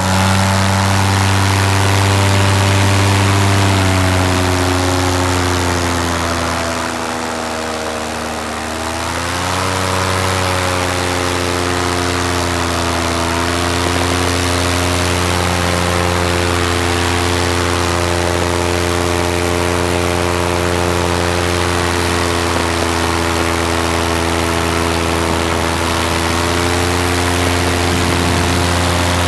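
Paramotor engine and propeller running in flight. The power comes off about four seconds in, so the pitch sags, and it climbs back at about nine seconds before holding steady again.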